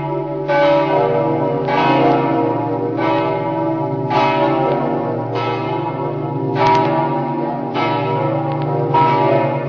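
Swinging church bells pealing, a fresh clang about once a second over the long, steady hum of the bells ringing on.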